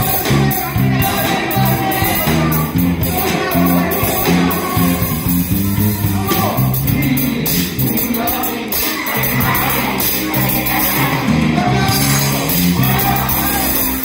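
Live band playing a 1990s R&B medley: electric guitars through small amplifiers, a saxophone and a bass line under a group of singers, with a steady beat.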